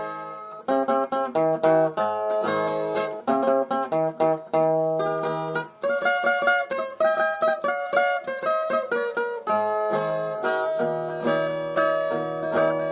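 Brazilian viola, a steel-string folk guitar, playing the instrumental introduction to a song as a melody of separate plucked notes, with a few sliding notes.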